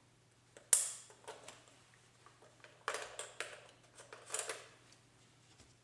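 A Nikon D40x's battery compartment being opened and the battery removed by hand. There is a sharp click about a second in, then smaller clicks and plastic scraping around three seconds and again around four and a half seconds in.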